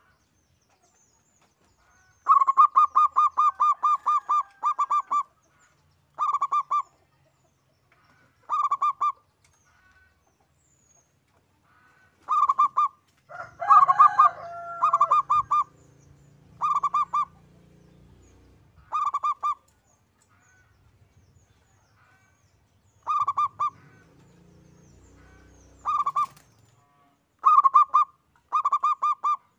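Zebra dove (perkutut) calling: repeated phrases of rapid, even staccato coos, the first and longest about three seconds, then shorter phrases every few seconds. Around the middle a different sliding call overlaps one phrase.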